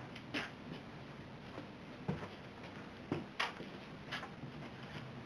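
A few short, irregular clicks and knocks, about five in all, over a steady low background hum.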